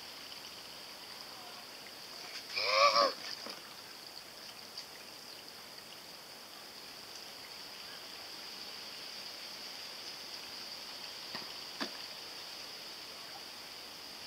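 A short, high-pitched vocal cry about three seconds in, rising and falling in pitch, over a steady faint high hiss of outdoor background.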